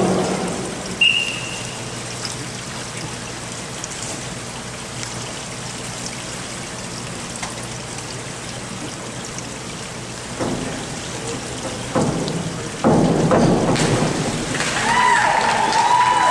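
Steady rain-like hiss of water in an indoor diving pool whose surface is kept rippled, with a short high tone about a second in. Louder bursts of noise come in near the end, along with a voice-like sound.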